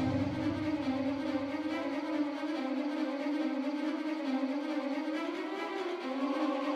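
Background music: slow, sustained bowed strings whose held notes bend gently in pitch.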